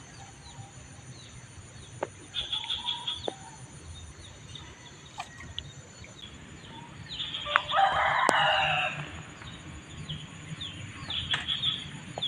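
A rooster crowing once, about seven seconds in, over short high chirps repeated throughout.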